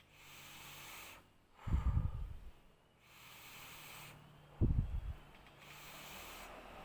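Three slow dry draws on an unfired vape, air hissing as it is pulled through the RDA's airflow, each about a second long. Two dull low thumps fall between the draws.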